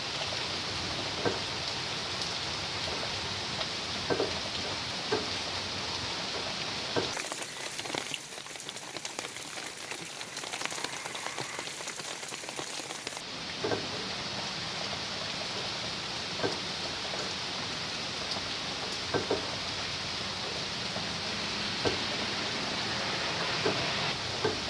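Steady rain falling, with a short, louder tap every second or few. About seven seconds in the sound turns to a thinner, higher hiss for about six seconds, then the steady rain comes back.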